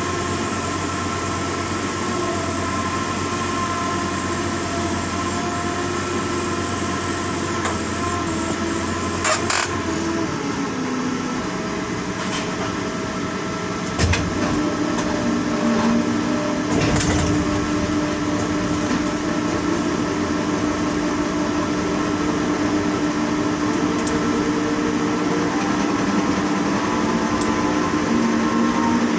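Steady machine hum with several held tones, heard from inside a tower crane's operator cab as the crane's drive motors run. About ten seconds in the lowest part of the hum drops away, and after a click about fourteen seconds in it grows louder with a new steady tone, as another drive starts up.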